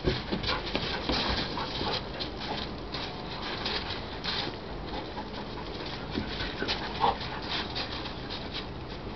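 Two Briard puppies playing on gravel, their paws scuffing and crunching the loose stones as they wrestle and run, with a short whine about seven seconds in.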